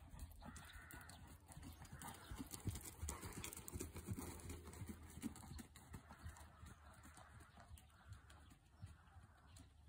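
A ridden horse's hoofbeats on a soft sand arena surface, a run of dull thuds that grow louder as the horse passes close, about three to five seconds in.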